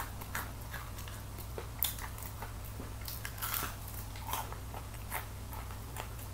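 Close crunching and chewing of a crispy fried chicken wing: irregular short, crisp crunches every half second or so as the coating is bitten, chewed and pulled apart. A faint steady low hum runs underneath.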